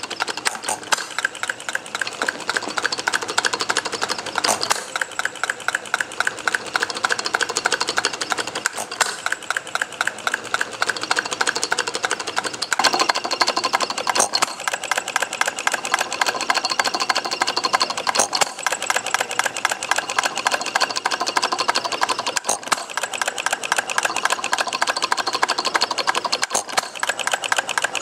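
A 2.22 cubic inch bar-stock miniature hit-n-miss engine running: a fast, even mechanical clatter, broken by a sharper crack every four to five seconds.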